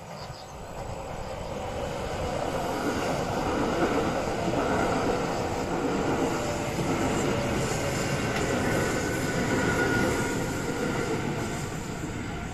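Kintetsu Nara Line electric train passing over a level crossing. The sound builds over the first few seconds, stays loud through the middle and fades near the end.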